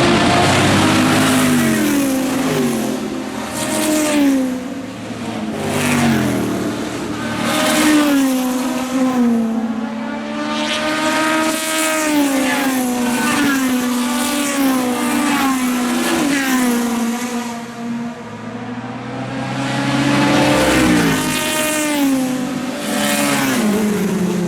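Historic single-seater racing cars going by one after another at full throttle, each engine revving up and dropping back in pitch again and again as it changes up through the gears.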